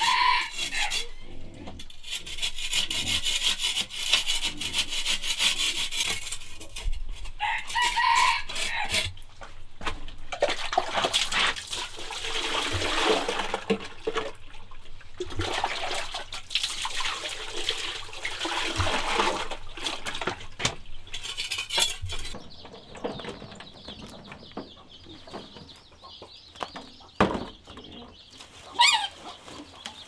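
Chickens clucking and calling, with short calls near the start, about eight seconds in and near the end, over long stretches of rubbing or scraping noise.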